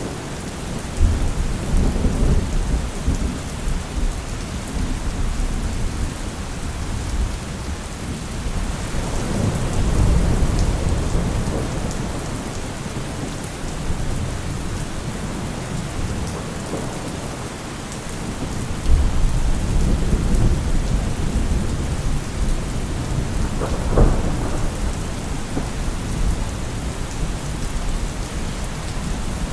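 Steady heavy rain hissing, with thunder rolling several times in low rumbles that swell and fade, and one sharper crack of thunder about three-quarters of the way through.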